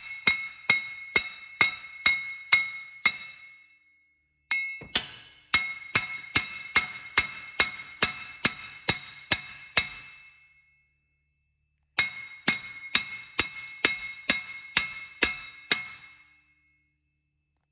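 Hammer blows on a steel nut set on the axle end at the wheel hub, struck about two to three times a second with a bright metallic ring. The blows come in three runs, with short pauses between them.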